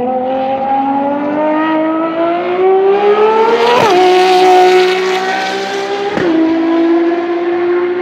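Ferrari FXX K's V12 engine accelerating hard, its pitch climbing for about four seconds and then dropping sharply at an upshift. It climbs again, and a second upshift comes about six seconds in. It is loudest around the first shift as the car passes.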